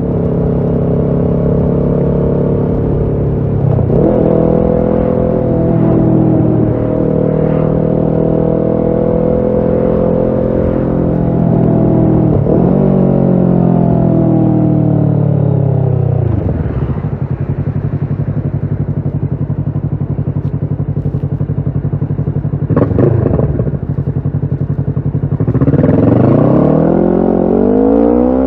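Kawasaki Ninja 650's parallel-twin engine through a Shark SRC-4 full exhaust system, accelerating with brief breaks in pitch at each gear change, then slowing with the revs falling to a steady low run. A quick throttle blip follows, and near the end the revs climb steeply under hard acceleration.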